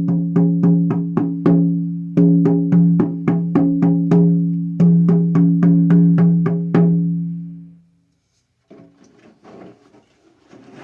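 10-inch deer-hide harmonic shamanic frame drum beaten in three quick runs of strokes, each stroke leaving a clear, low pitched ring that carries between the beats. The ring dies away about eight seconds in, followed by faint handling rustles.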